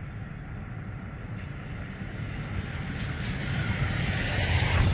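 Wind buffeting the microphone, a low rumble that slowly builds and swells into a stronger gust near the end.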